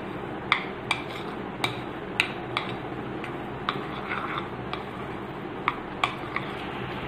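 Spoon clinking and scraping against a bowl as mashed boiled egg is stirred into mayonnaise: about a dozen sharp, irregular clicks over a low steady hiss.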